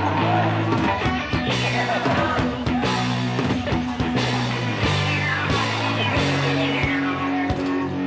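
Background music with guitar and drums.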